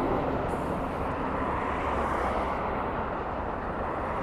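Steady rushing rumble of a nearby vehicle, with a faint low hum that fades out about a second and a half in.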